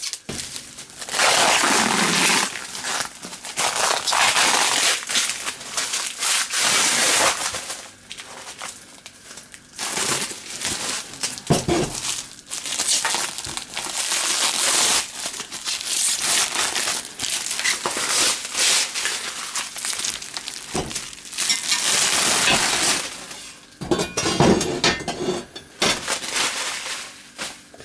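Clear plastic wrapping crinkling as it is pulled off a sheet of steel plate, in repeated stretches with short pauses between.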